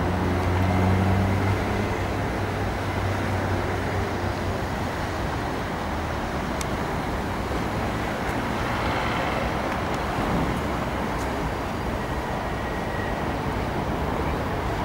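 Steady road traffic noise. A heavy vehicle's low engine drone is loudest in the first second or two, then fades into the general rush.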